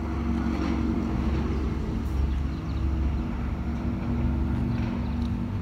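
A nearby engine running steadily: a low rumble with a constant hum.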